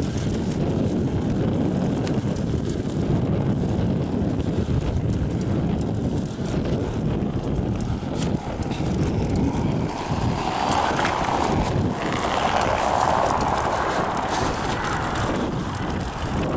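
Outdoor city street noise: a steady low rumble of traffic and wind on the microphone. A rushing hiss swells about ten seconds in and fades a few seconds later.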